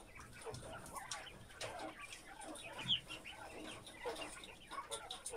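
A caged flock of white giant Japanese quail making many short chirps and soft clucking calls, with scattered light clicks. One sharp high chirp about three seconds in is the loudest sound.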